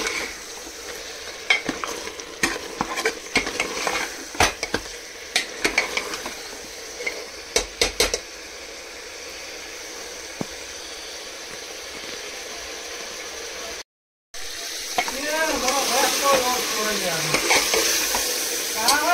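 Mutton rogan josh frying in a pot with a steady sizzle, while a spoon scrapes and knocks against the pot as the meat is stirred, the knocks mostly in the first half. After a brief dropout about two-thirds of the way through, the sizzling is louder.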